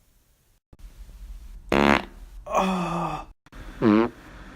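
Three short, pitched farts in quick succession, the second one longer and sagging in pitch.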